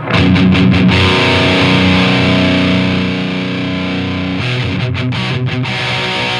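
Heavily distorted electric guitar played through a Diezel VH2 valve amplifier into a Marshall 4x12 cabinet. A few quick, cut-off strokes are followed by a chord left ringing for about three seconds, then more short stabbed chords with brief gaps near the end.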